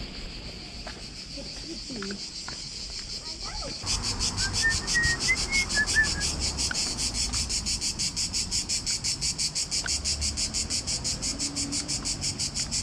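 Insect chirring in rapid, regular pulses of several a second, starting suddenly about four seconds in and running on steadily.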